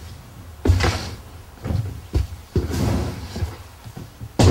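Handling noise at a worktable: several dull thumps and knocks, about five in all, the loudest near the end, as a skinned otter pelt is lifted and moved about.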